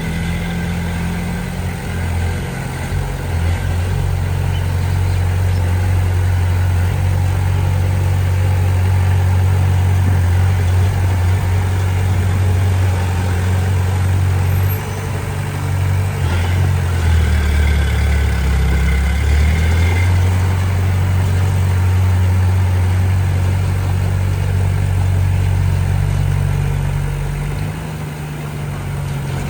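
Diesel engine of heavy earthmoving machinery running steadily. Its note drops lower for a few seconds past the middle, then comes back up.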